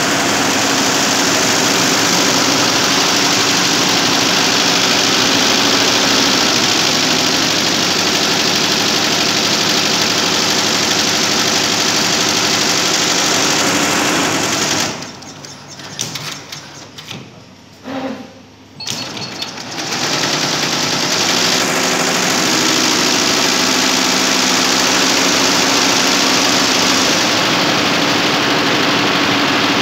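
Tajima multi-needle embroidery machine running at full speed, its needle head stitching steadily. About halfway it falls quiet for a few seconds, with a few faint clicks, then starts stitching again.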